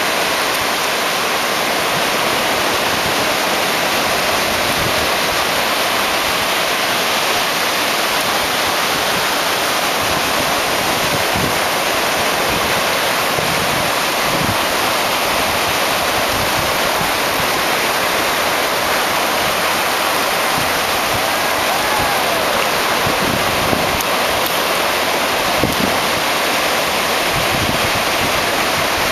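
Ocean surf breaking and washing up a sandy beach: a steady, unbroken rush of water.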